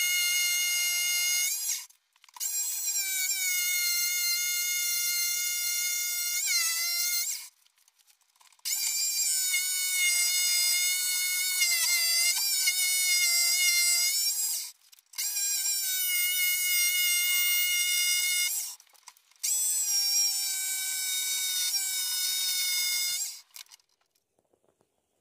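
Ryobi RJS1050 corded jigsaw cutting through a wooden board. Its motor gives a steady high whine whose pitch sags slightly under load. It stops and restarts four times and cuts off near the end.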